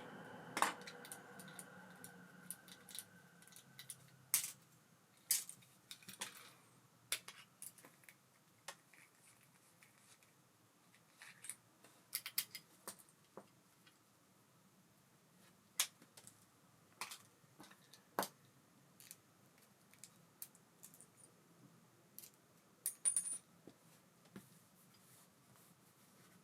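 Small metal parts of an Abu Garcia Ambassadeur 5500C baitcasting reel clicking and clinking as the reel is handled and worked on, in irregular sharp taps. A faint whir dies away over the first few seconds.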